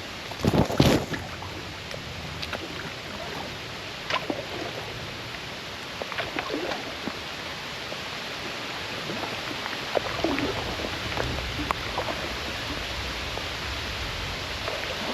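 Kayak paddling on a creek: irregular paddle splashes and knocks, the loudest about half a second in, over a steady rush of water.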